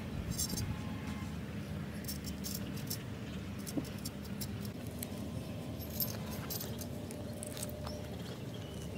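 A knife blade scraping and cutting the blackened skin of charred whole fish on a banana leaf, a string of short, crisp scratches and crackles over a steady low background rumble.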